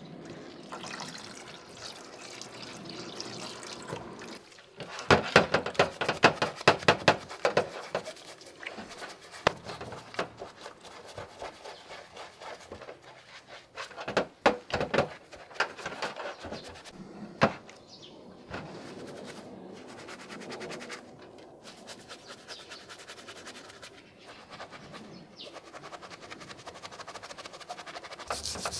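Washing-up liquid squirted from a squeeze bottle onto watchmaker's vise parts, then a small brush scrubbing the parts in soapy water, with wet sloshing. The scrubbing comes in quick runs of strokes, loudest a few seconds in and again about halfway through.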